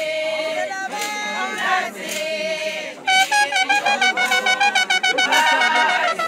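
A group of women singing a traditional siSwati song together with long held notes. About three seconds in, a high, rapidly pulsing voice joins over the singing.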